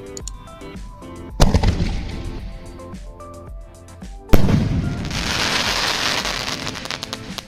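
Sony Vinayaga 'World War' crackling sky shot firing: a sharp launch thump about a second and a half in, a louder bang as the shell bursts just after four seconds, then dense crackling as the star-shaped burst spreads.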